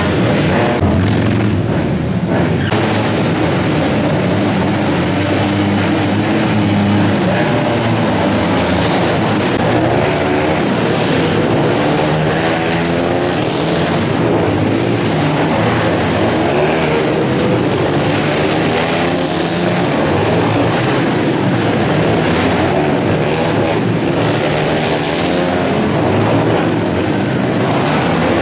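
Several small dirt bike engines racing together, their revs rising and falling over and over as the bikes accelerate and slow through the turns.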